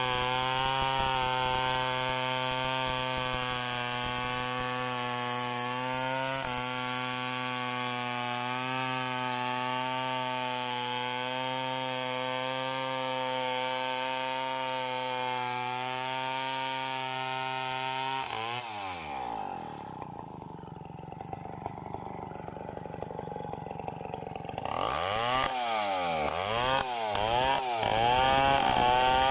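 Two-stroke Tecomec chainsaw ripping lengthwise through a coconut log at a steady high engine speed. About eighteen seconds in, the revs fall away and it drops to a low idle for several seconds. It is then revved up and down repeatedly, growing louder, as the bar goes back into the log.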